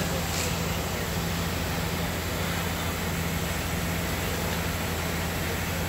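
Fire engines running steadily, a low engine drone under a constant hiss.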